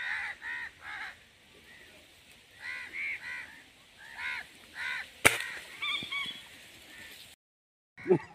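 Crows cawing over and over in short calls. About five seconds in, a single sharp crack of an air rifle shot stands out as the loudest sound, and the sound drops out briefly near the end.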